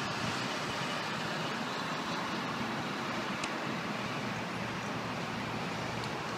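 Steady city traffic noise, a continuous hiss of vehicles on surrounding streets, with one faint tick a little past halfway.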